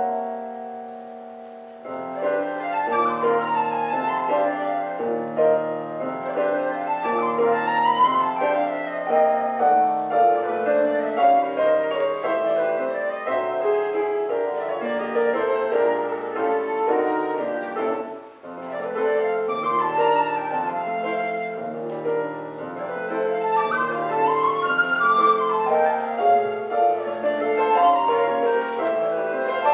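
Flute playing a lyrical melody with piano accompaniment. A held note fades away over the first two seconds, then both parts come back in, and there is a brief pause about two-thirds of the way through.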